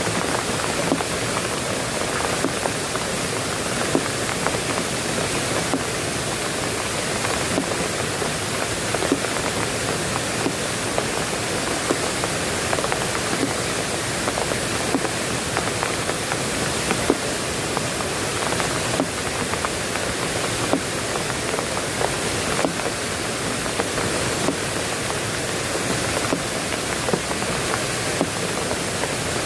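Steady rain: an even hiss with many separate drop hits close by.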